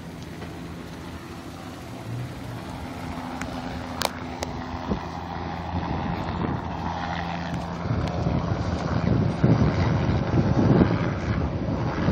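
A steady low engine hum with wind buffeting the microphone, the wind rumble growing louder through the second half. One sharp click about four seconds in.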